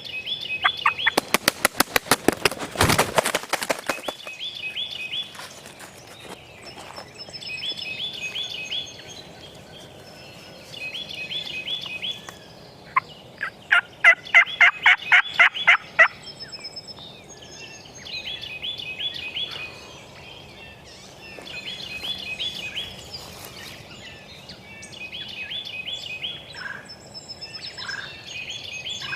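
Turkey yelping: a loud, scratchy run of rapid notes about a second in and a clearer series of about ten yelps around the middle. A songbird sings a short high phrase every two to three seconds throughout.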